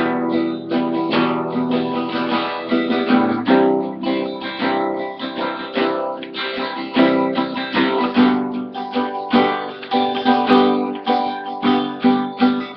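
Acoustic guitar strummed with a pick in a steady rhythm of chords, the strokes moving between the bassy low strings and the trebly high strings, with the pick clicking on each stroke.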